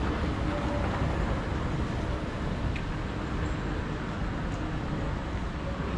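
Steady low rumble of airport terminal background noise, the hum of a large hall, with a faint click or two.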